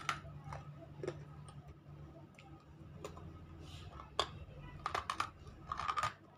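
Teeth biting and crunching through hard lumps of unshaped nakumatt clay, making sharp irregular cracks. The cracks come in quick clusters near the end.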